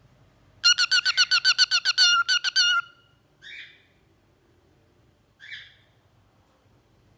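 Cockatiel calling: a rapid string of short whistled notes lasting about two seconds, followed by two short, raspy chirps about two seconds apart.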